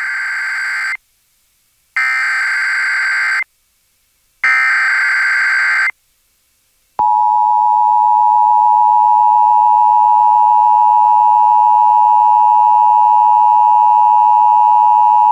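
Emergency Alert System header relayed over FM radio: three SAME digital data bursts, each about a second and a half long with short silences between, then the steady two-tone (853 and 960 Hz) EAS attention signal starting about seven seconds in. Together they open a Required Monthly Test.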